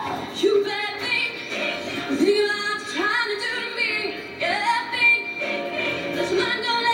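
A female soloist singing into a microphone over music, during a choir's staged performance.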